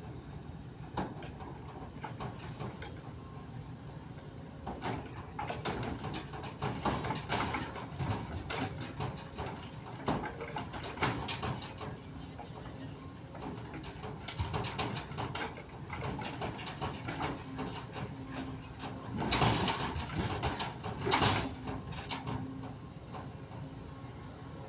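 Kobelco SK130 excavator's diesel engine running steadily while the grapple works, with repeated knocks and clatter. The clatter is loudest near the end.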